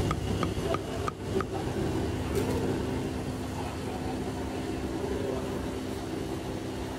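Cleaver chopping braised pork leg on a chopping block: four quick knocks in the first second and a half, then a steady background hum.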